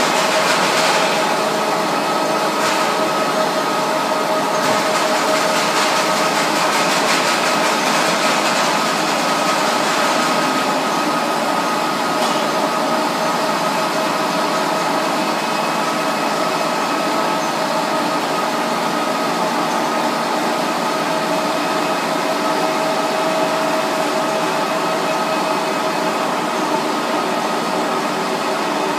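A freshly overhauled bielomatik automatic exercise-book production line test-running empty, without paper: a steady, dense mechanical running noise with a few held hum tones.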